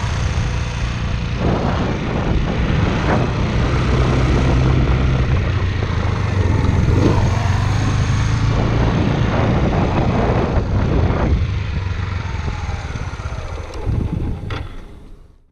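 Suzuki GZ250 single-cylinder motorcycle engine running while ridden through a low-speed corner, under a steady rush of wind noise on the bike-mounted camera. It builds in the first half, eases off as the bike slows, and fades out at the end.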